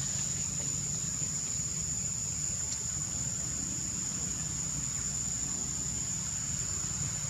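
Steady high-pitched drone of insects, unchanging throughout, over a low steady rumble.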